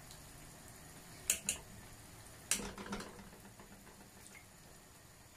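A spoon clinks against a pot or container while ghee is spooned into a pressure cooker of biryani rice: a quick double clink about a second in, then a single clink with a short ring about halfway through and a few lighter ticks after it, over a faint steady hum.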